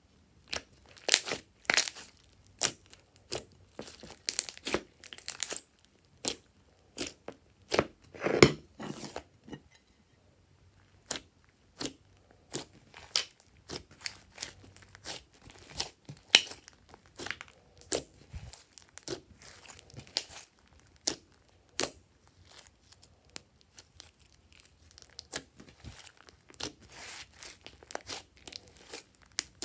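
Glossy slime being stretched, squeezed and kneaded by hand, giving irregular sticky pops and crackles a few times a second. There is a louder cluster of pops around eight seconds in and a short lull near ten seconds.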